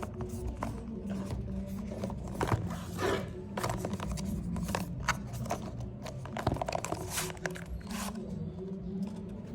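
Handling noises from unboxing a K9 wireless microphone kit: scrapes, rustles and sharp clicks of packaging and plastic parts, over quiet background music.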